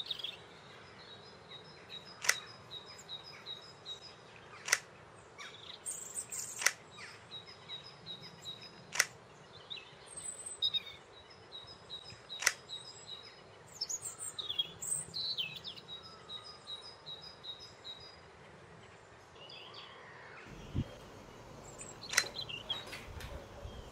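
Half a dozen sharp plastic clicks a couple of seconds apart, with a long gap before the last, as foam darts are loaded into Nerf blasters and magazines. Between the clicks a bird chirps in quick high runs.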